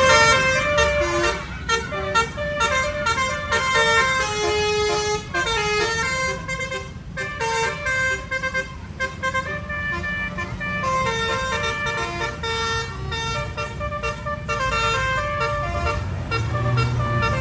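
Bus 'basuri' telolet horn, a multi-tone horn playing a tune of quickly changing notes, over a low rumble.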